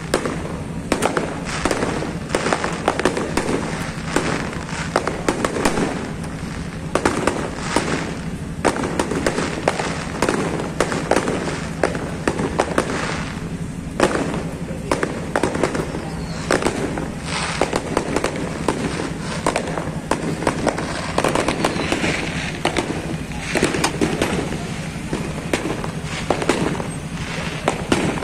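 Aerial fireworks display going off continuously: a rapid, unbroken run of bangs and crackling bursts from shells exploding overhead.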